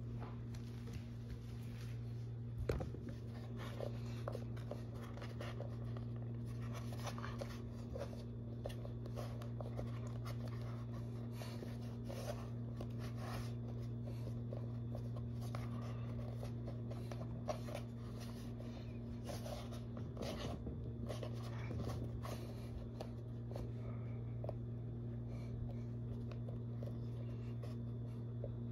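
Sculpting tools scraping and tapping on polymer clay in small, irregular strokes, over a steady low hum. One sharper knock about three seconds in.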